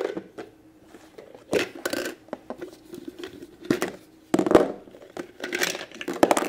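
Hard plastic toy parts handled and knocking together: the lid of a plastic honey pot stacking toy lifted off, then the pot tipped so the plastic shape blocks inside tumble out and clatter onto the table, in a handful of separate knocks.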